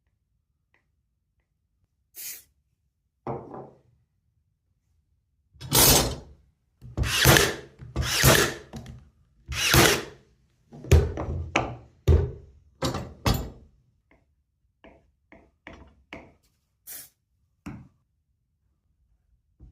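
Workshop handling of steel T-bar sash clamps: a run of loud, short clunks and scrapes, roughly one a second, then fainter clicks and taps near the end.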